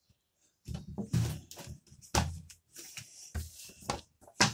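A parcel being handled and swung close to the microphone: a run of rustles and knocks starting just under a second in, with the sharpest thump near the end.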